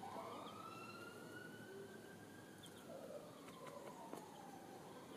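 Emergency-vehicle siren wailing faintly, its pitch rising slowly for about two seconds and then falling away again, with a few faint ticks and short high chirps over it.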